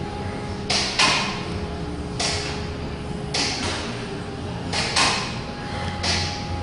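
Footsteps of someone walking on a hard floor: soft hissy shoe scuffs about once a second, over a steady low hum.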